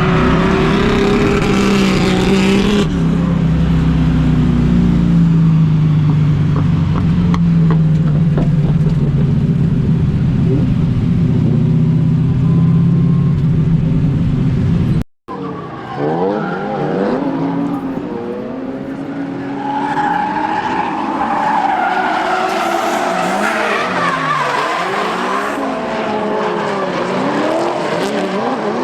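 Drift cars' engines running hard with tyres skidding. The engine note is steady at first; after a sudden cut about halfway, engines repeatedly rev up and down in pitch.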